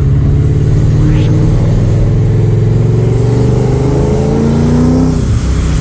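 Supercharged Ford V8 engine running loud and steady, its pitch creeping up slightly until about five seconds in, then dropping back.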